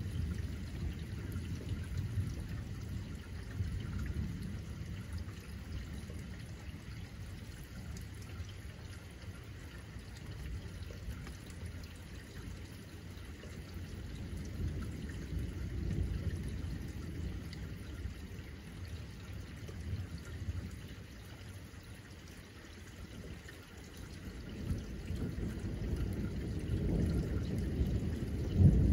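Steady rain, with a low rumble of thunder that fades away in the first few seconds and builds again over the last few.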